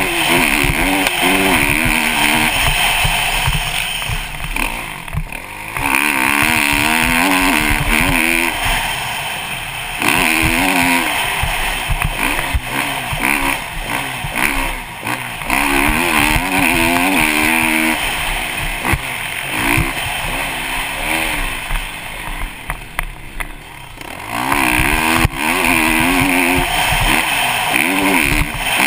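Kawasaki KX450 four-stroke single-cylinder motocross engine ridden hard, its pitch rising and falling over and over as the throttle opens and closes, with short drops off the throttle about five, ten and twenty-two seconds in. Wind buffets the helmet-mounted microphone throughout.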